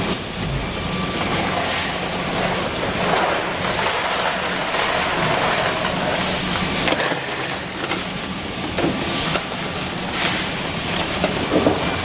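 Wire-mesh conveyor belt and factory machinery running with a steady low hum and a metallic rattle, with high ringing tones that come and go. Zinc alloy handle castings clatter as they are scooped off the mesh into a steel bin.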